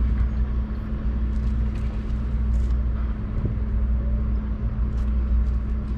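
A steady low rumble with a constant hum, like an engine running evenly, with a few faint short clicks over it.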